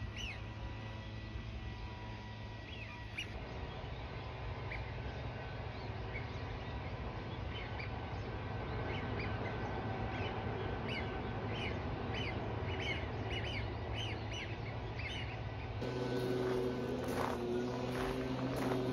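Birds calling at a duck pond: short whistled calls, scattered at first and then coming thick and fast for several seconds in the middle, over a steady low hum.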